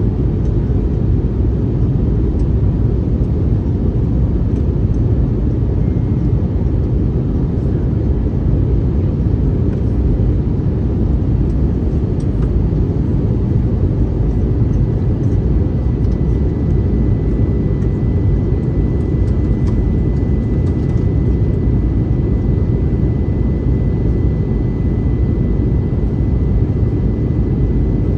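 Steady, even noise from the engines and rushing air inside the cabin of an Airbus A321neo airliner, with a faint steady whine joining about halfway through.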